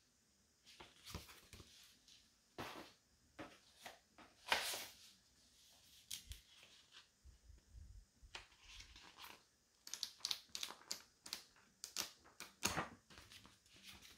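Faint handling sounds of unpacking: scattered clicks and knocks with brief rustling and crinkling of packaging, and a quick flurry of clicks about ten seconds in.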